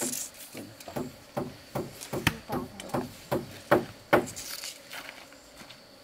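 A quick series of strikes on wood, about three a second, each with a short ringing tail, stopping about four seconds in.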